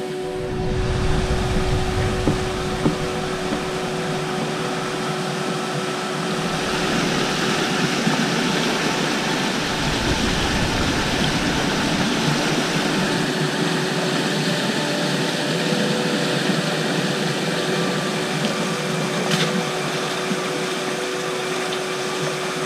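Steady rushing of a fast-flowing river swollen after heavy rain, water running over rocks, loudest in the middle. A low rumble of wind on the microphone comes near the start, with faint steady hum tones underneath.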